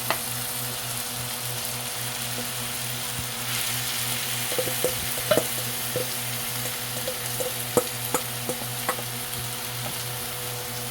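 Shredded chicken breast sizzling in hot oil in a pan, with a utensil clicking against the pan several times during the second half as it is stirred. A steady low hum runs underneath.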